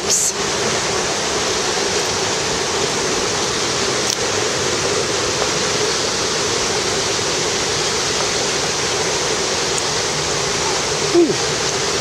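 Steady, even rushing of a waterfall's falling water, without breaks.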